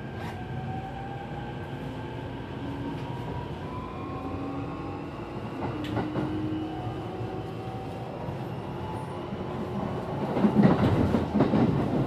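Keikyu New 1000 series (1200 subseries) electric train with a Mitsubishi SiC-VVVF inverter, under way: the inverter and traction-motor whine climbs slowly in pitch as the train gathers speed, over the rumble of the wheels. About ten seconds in, the wheel and rail noise grows louder and rougher.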